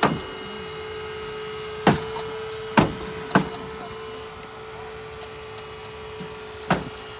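Hydraulic rescue tool (jaws of life) cutting into a minivan's door pillar: its power unit hums steadily at one pitch while the car body gives way in five sharp cracks.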